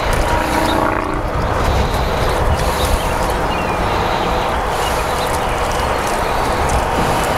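Steady outdoor background noise, a continuous low rumble with hiss above it.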